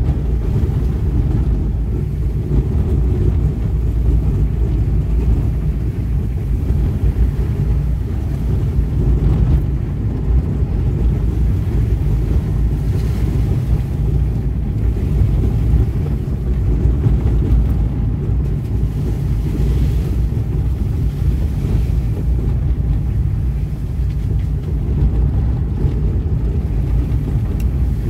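Small car driving along a rough dirt track: a steady low rumble of engine and road noise.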